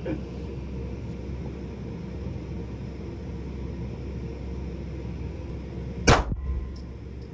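A single pistol shot about six seconds in: one sharp crack with a short ring-off, over a steady low hum.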